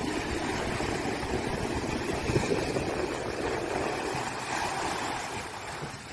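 Surf: small waves breaking and washing up over the sand in a steady rush of water, a little louder in the middle and easing near the end.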